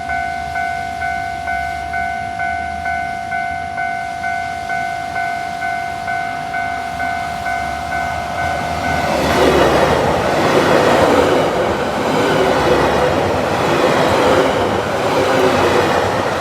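Japanese level-crossing alarm ringing its electronic two-tone bell at about two strikes a second. About nine seconds in, a 789 series 1000 subseries electric multiple unit comes through the crossing, and its rushing, clattering noise drowns the bell, swelling and dipping as the cars go by.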